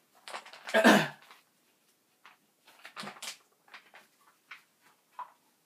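A man with a mouthful of flour sneezing once, about a second in, a sudden burst of breath after a few short gasps. Faint breaths and small knocks follow.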